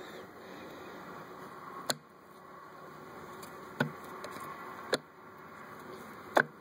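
Four sharp clicks of close handling noise, the last the loudest, over a faint steady hum.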